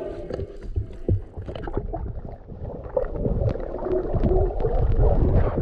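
Muffled underwater sound picked up by a submerged camera: a low rumble of water with scattered clicks and knocks, and a faint wavering hum.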